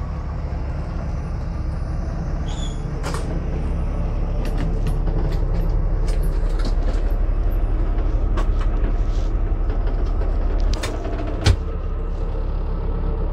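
Greyhound coach's engine idling with a steady low rumble while the bus stands at a stop, with scattered light clicks and knocks and one sharp knock about eleven and a half seconds in.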